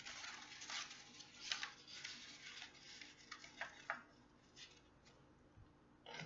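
Construction paper rustling and crinkling in a string of short, crisp, faint sounds as paper strips are handled, with a sharper snap near the end.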